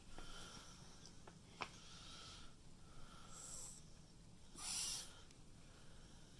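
Quiet room with a person's faint breathing and two soft clicks about a second and a half in. A short breathy hiss, like a sniff or sharp exhale, comes near the three-quarter mark and is the loudest sound.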